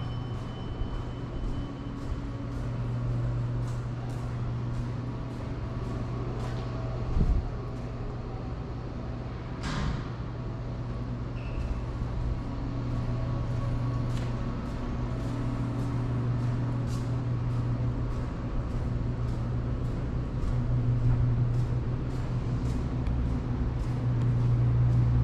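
A vehicle engine running with a steady low hum that grows louder near the end, with scattered light clicks and a couple of louder knocks.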